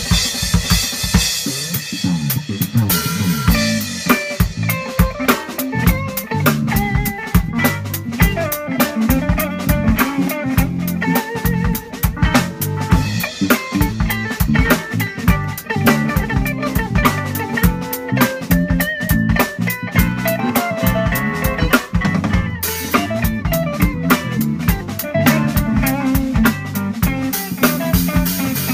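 A small band playing an instrumental: an acoustic drum kit keeps a busy beat of bass drum, snare and cymbals under a digital piano and an electric guitar carrying the melody. The cymbals ring out brighter about two-thirds of the way through.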